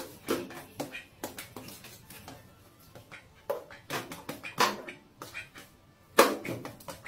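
Background music made of short, irregular clicking hits, with a louder hit about six seconds in.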